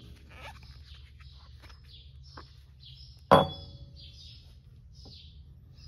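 A single sharp metal clink about three seconds in, with a short ring, as a steel ball joint press adapter cup is set down on the wooden workbench. A few small ticks of handling follow, and birds chirp faintly in the background.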